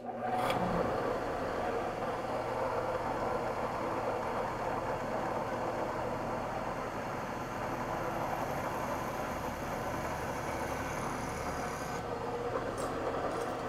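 Benchtop drill press running steadily at about 2100 RPM, on its second pulley position, as a small 5/64-inch bit drills through a thin copper bus bar. The motor and belt hum stays even throughout. A higher hiss from the cutting stops about twelve seconds in.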